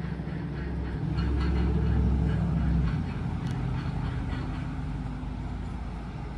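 A motor vehicle's engine running, its low hum swelling about a second in and easing off around three seconds.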